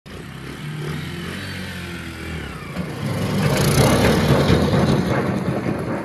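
Small 125cc engine of a homemade road-roller trike running steadily, its note rising near two seconds. From about three seconds in it gets louder and rougher, with a rushing noise as the trike pulls away.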